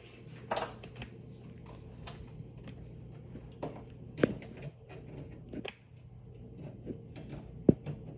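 Scattered clicks and knocks of objects being handled, such as a vacuum and its cord being set up, over a faint steady low hum; the sharpest knocks come about four seconds in and near the end.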